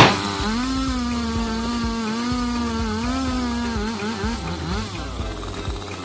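Two-stroke chainsaw held at high revs while cutting oak logs to firewood length, its engine note steady apart from a brief sag about four seconds in. A loud sharp knock comes right at the start.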